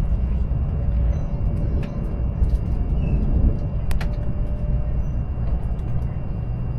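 Steady low rumble of a moving vehicle, with a faint steady hum and a few light clicks, one sharper click about four seconds in.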